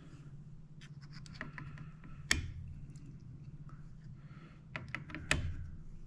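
Light ticks and clicks of a torque driver tightening scope ring screws to 15 inch-pounds, alternating between screws, with two sharp, louder clicks about three seconds apart.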